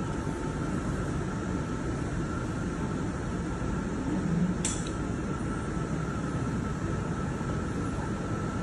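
Steady rushing air noise from a fan-type blower, with a faint steady whine, and one short hiss about four and a half seconds in.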